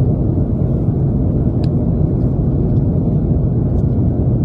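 Airliner cabin noise in flight: a loud, steady low roar with no change. A faint click comes about a second and a half in.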